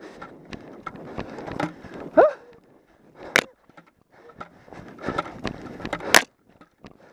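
Scuffing and clattering of a player moving with the bucket and gear during an airsoft game, with many small clicks throughout. There are two sharp cracks about three seconds apart, and a brief rising shout-like sound about two seconds in.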